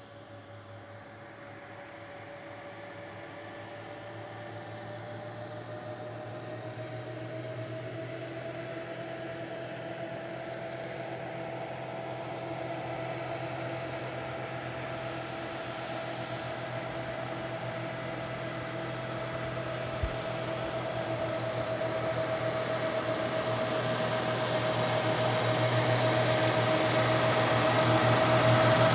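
Diesel engine of an Isuzu BXD30 bonnet bus running as it drives closer, growing steadily louder, with a steady drone whose pitch rises slightly about a quarter of the way in. A single short click comes about two-thirds of the way through.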